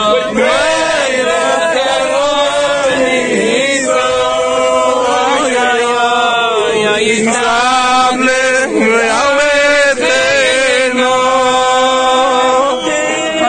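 A group of men chanting a melody together, with long held notes that slide from one pitch to the next.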